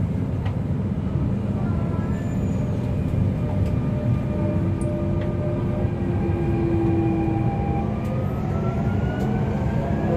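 Dubai Metro train in motion, heard from inside the car: a steady rumble of wheels on the rails, with a faint whine that rises in pitch from about eight seconds in.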